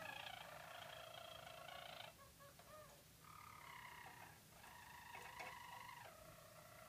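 Harzer Roller canaries singing softly in long, even, rolling phrases, the low purring roll tours this breed is trained to deliver for song competition. The song pauses briefly about two seconds in, resumes higher-pitched about a second later, and shifts back to a lower roll near the end.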